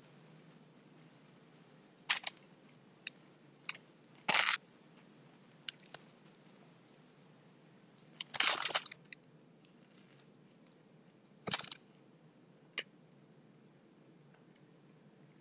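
Eating noises from a toasted sub sandwich held over its paper wrapper: about nine short, sharp crackles and clicks. The loudest comes about four seconds in, and a longer crackly stretch comes around eight and a half seconds. A faint hum of room tone runs underneath.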